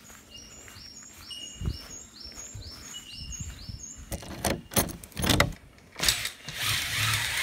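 A bird repeats a short rising chirp about eight times in quick succession. Then come several heavy footsteps and knocks on wooden steps. Near the end a door slides open with a loud scraping rush.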